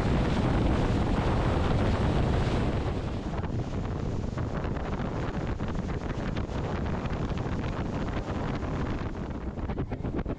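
Wind buffeting the microphone of a boat running at speed, over the rush of water along the hull. It eases a little about three seconds in and turns gusty and choppy near the end.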